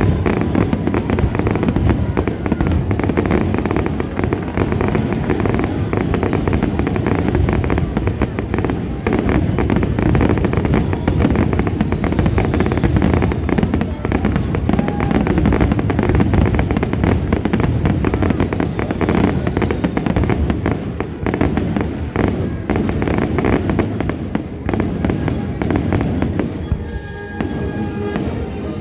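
A dense, continuous barrage of fireworks: bangs and crackles following one another without pause. Near the end the bursts thin out and music comes through.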